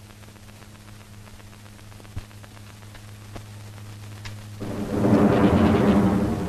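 A loud rolling thunderclap builds about two-thirds of the way in and begins to fade, over faint rain and a steady low hum.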